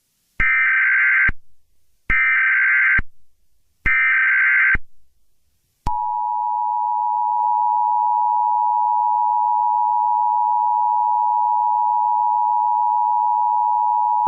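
Emergency Alert System SAME header: three short bursts of warbling digital data tones, each about a second long with a short gap between. About six seconds in, the EAS two-tone attention signal begins and sounds as a steady, harsh chord until the end, marking the start of an emergency alert.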